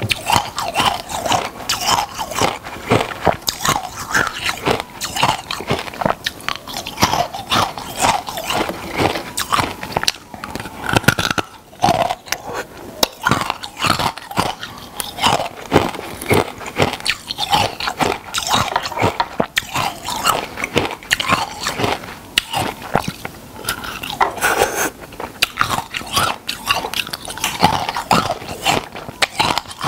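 Close-up crunching as someone bites and chews hard, crunchy food, in a dense, irregular run of sharp cracks and crackles.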